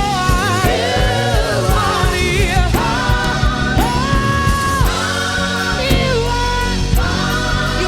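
Gospel-style worship song: a singer's melody, with one long held note partway through, over a full band with drums and bass.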